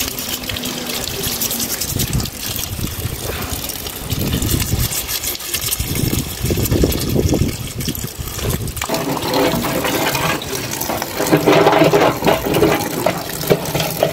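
Water running hard and splashing into a container as live crabs are washed off.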